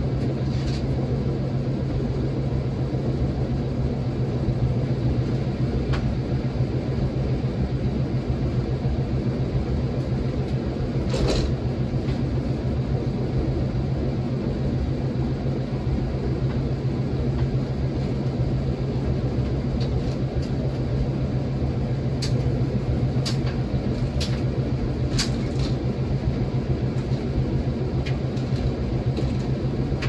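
A 2007 Whirlpool washing machine running steadily late in its permanent press cycle: a continuous low hum with a rumble beneath. A few light ticks come through about 11 seconds in and several more past the middle.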